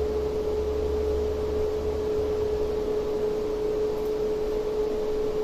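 Steady fan hum and hiss with one constant mid-pitched tone, and a low rumble underneath for the first couple of seconds.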